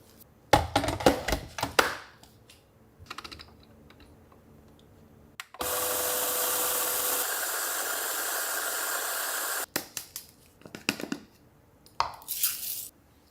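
Kitchen prep sounds: a few clicks and knocks of utensils and dishes, then a kitchen tap running steadily for about four seconds and shut off abruptly, followed by more light clatter.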